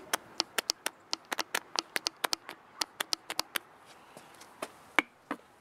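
Quick, irregular clicks as a hand-pump oil squirter is worked over the rocker arms and cams of a cylinder head, pre-oiling the valvetrain during assembly. The clicks thin out after about three and a half seconds, with one louder click near the end.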